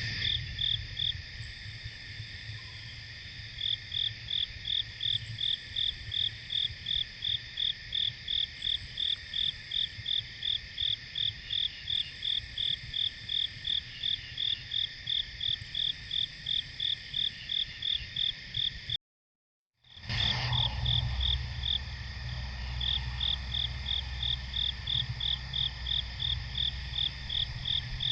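Chorus of crickets and other insects: steady high trills, with one cricket chirping evenly a few times a second. The sound drops out for about a second partway through, then comes back with a brief low rumble.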